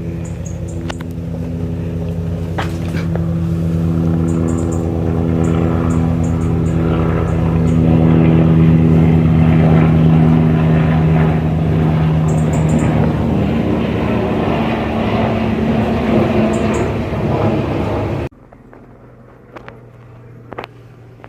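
Agusta Westland A109 twin-turbine helicopter flying past, its rotor and engines making a steady loud drone with a low hum. It grows louder toward the middle and then eases off. About three seconds before the end it cuts off sharply, leaving a faint hum with a few clicks.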